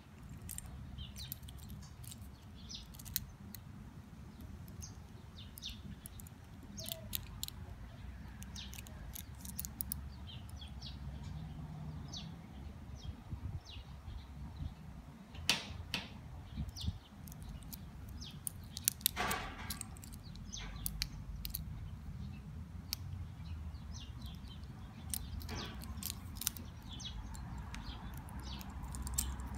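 Small irregular clicks and clinks from a metal wristwatch and its link bracelet being handled and turned in the hand, with a few louder clinks in the second half.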